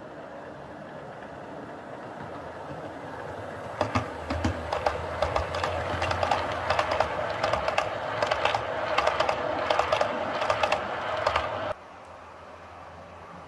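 Model freight train rolling past close by, its wheels clicking rapidly and irregularly over the rail joints over a steady motor hum, the sound building as the cars pass. It cuts off abruptly near the end.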